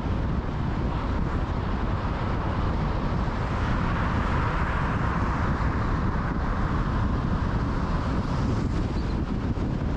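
Steady road noise of a car driving on a motorway: low tyre and engine rumble with wind buffeting the microphone. A hissing band swells briefly in the middle and then settles.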